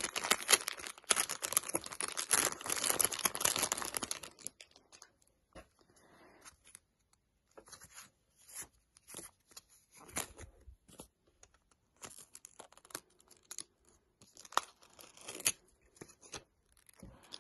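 Plastic packaging bag torn open and crinkled for about the first four seconds, then scattered light rustles and clicks as a clear plastic phone case is handled and taken out of it.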